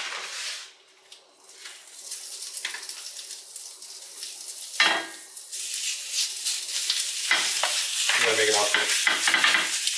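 Seasoned carne asada sizzling as it is tipped into a hot cast iron skillet on a gas burner, the frying hiss building steadily louder as more meat goes in. A sharp clink about five seconds in, and a brief low voice near the end.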